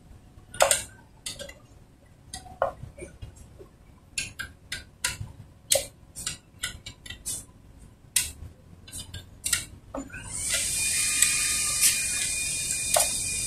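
Metal tools and parts clinking and tapping in quick, irregular clicks during work on a Honda TMX 125 motorcycle's rear drum brake. From about ten seconds in, a steady hiss joins and continues.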